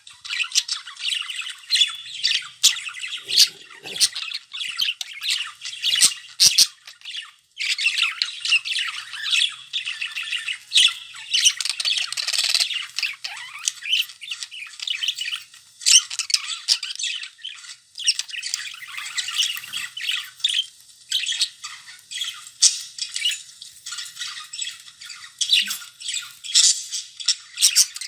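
Pet budgerigars chattering and squawking continuously, a dense mix of warbling, chirps and sharp clicks, with a brief pause a little past seven seconds in.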